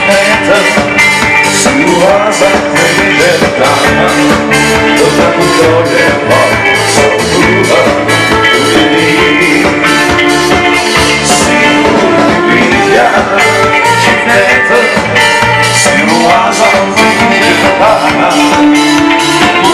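Live band playing a song: male vocals over electric guitar, bass and a drum kit keeping a steady beat.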